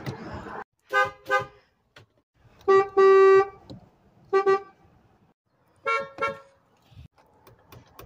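Car horns beeped in short bursts, cutting from one car to another, each horn at a slightly different pitch. First come two quick beeps, then a short beep and a longer, louder one, then a single beep, and near the end two more beeps.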